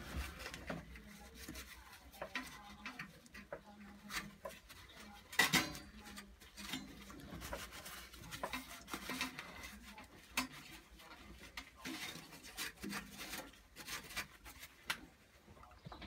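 Paper towel rustling and rubbing as thermal compound is wiped off, with scattered small handling clicks and one sharper knock about five and a half seconds in.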